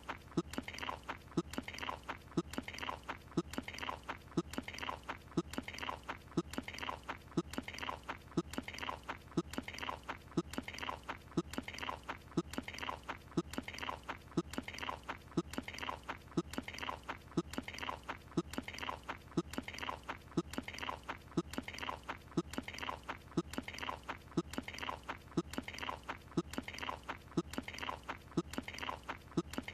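A cartoon character chewing a croissant: the same short chewing and biting sound repeats over and over at an even, steady rhythm.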